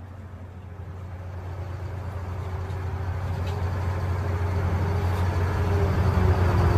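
Caterpillar 988B wheel loader's V8 diesel engine running with a steady low rumble that grows gradually louder.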